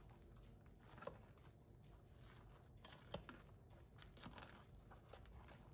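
Near silence, broken by a few faint, short clicks and crunches of a spatula folding chopped walnuts and raisins into whipped egg whites in a glass bowl.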